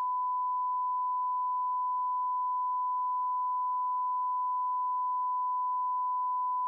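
Steady 1 kHz sine-wave test tone from a software signal generator played through a computer sound card, held at a constant pitch and level, with faint clicks about four times a second.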